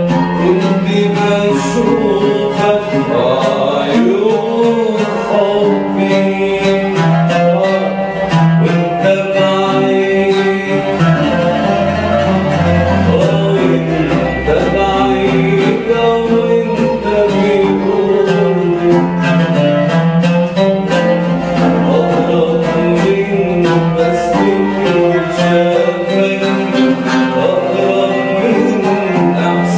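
Arabic ensemble music played live on oud and qanun, with plucked string notes running continuously.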